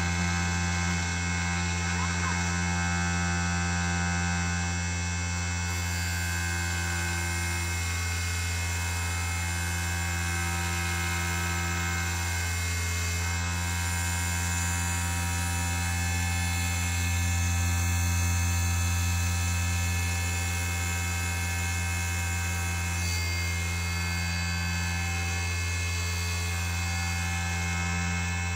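Small converted CNC1610 lathe running a machining test: a steady electric-motor hum with a set of fixed whining tones above it, swelling slightly about two-thirds of the way through.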